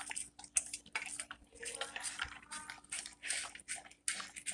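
A dog eating soft, moist cooked food from a bowl: irregular wet smacking and licking sounds, several a second.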